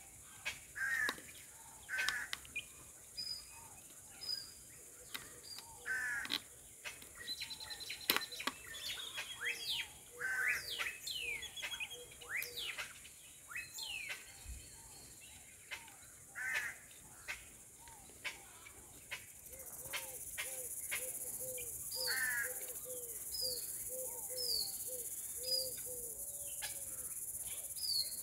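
Birds chirping and calling, with a steady high insect hiss behind them. About two-thirds of the way through, the hiss grows louder and a quick run of lower repeated calls begins. A few sharp clicks fall in between.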